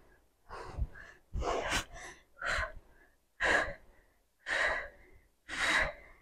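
A woman breathing hard from exertion during dumbbell swings: short, forceful exhales about once a second, with quiet gaps between.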